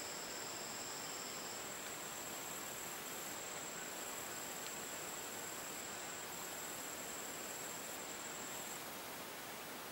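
Steady, high-pitched insect trill over a constant hiss; a second, lower insect tone drops out about a second and a half in, and the main trill stops near the end.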